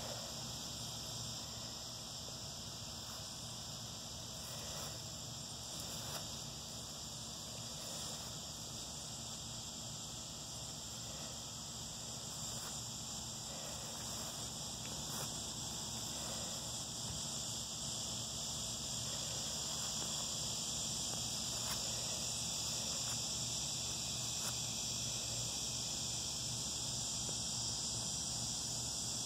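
Steady high-pitched drone of insects, growing somewhat louder about two-thirds of the way through.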